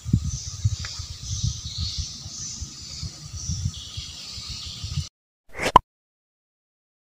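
Outdoor ambience at the water's edge: irregular low rumbling on the microphone under a wavering high-pitched chirping of wildlife. About five seconds in, the sound cuts off abruptly. A short swoosh follows half a second later, then silence.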